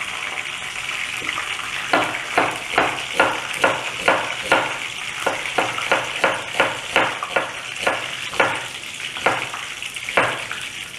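Knife chopping an onion on a cutting board, a steady run of strokes about two or three a second from about two seconds in until near the end. Under it, whole spices (cinnamon, cloves, star anise, cardamom) sizzle steadily in oil and clarified butter.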